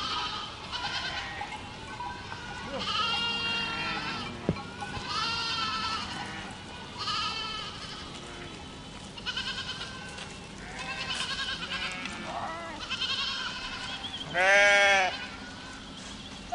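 A herd of goats bleating, one wavering call after another and often overlapping, mostly high-pitched. One much louder, lower bleat stands out near the end.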